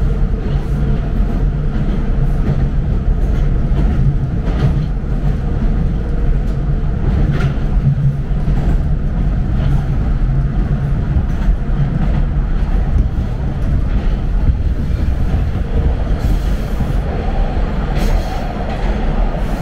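TTC Line 2 subway train (T1 car) running at speed, heard from inside the car: a steady low rumble of wheels on rail, with a few sharp clacks as the wheels pass rail joints.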